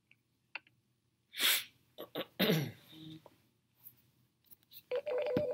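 A person sneezes about one and a half seconds in: a sharp rush of breath followed by a short falling vocal sound. Near the end, the audio of a video starts playing through the computer.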